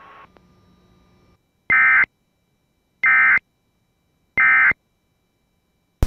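Emergency Alert System end-of-message SAME data tones: three short, identical bursts of digital data tones about 1.3 seconds apart. They signal the end of the severe thunderstorm warning message.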